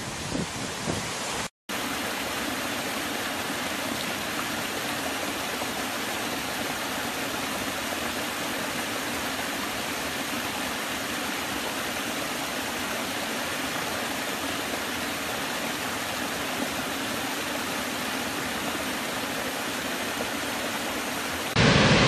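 Waterfall: falling water rushing in a steady, even hiss with little low rumble, after a brief break in the sound near the start.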